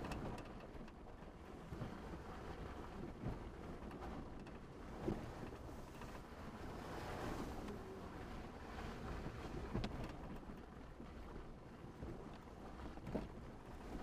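Vehicle driving slowly over a rough, muddy dirt trail, heard from inside the cab: a steady low rumble of engine and tyres, with a few sharp knocks as it jolts over bumps, about five and ten seconds in and again near the end.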